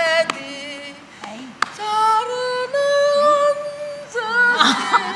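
Female voices singing in a drawn-out, wailing way, in long held notes that step up and down. Near the end there is a louder, rougher burst of voice.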